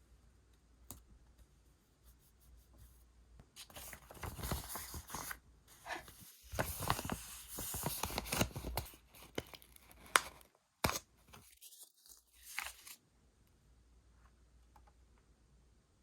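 Paper craft material being torn and handled, in rough rustling bursts over several seconds, with a few sharp clicks near the middle.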